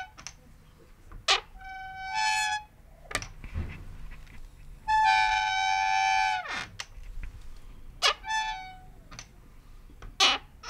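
Creaking door hinge: several high, pitched squeals. The longest, about five seconds in, holds for over a second and slides down in pitch at the end. Sharp clicks fall between the squeals.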